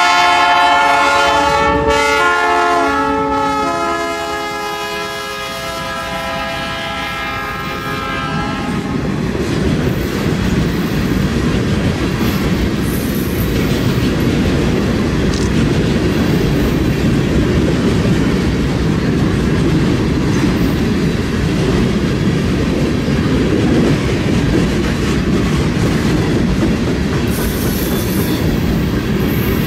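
BNSF GE C44-9W diesel locomotive sounding its multi-note air horn for about nine seconds, with two short breaks near the start, as it passes close by. Then comes the steady rumble and clickety-clack of heavily loaded flatcars rolling past on the rails.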